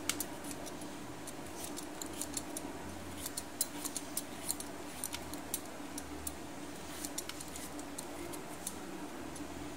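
Hand-held metal vegetable peeler scraping the skin off a tinda (apple gourd): an irregular run of small scrapes and clicks, over a low steady hum.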